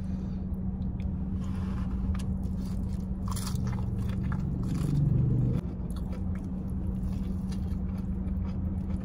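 Close-up eating sounds: crispy fried chicken being bitten and chewed, with a few sharp crunches of the batter around two and three and a half seconds in. A brief low hum of the voice about five seconds in is the loudest moment, over a steady low hum underneath.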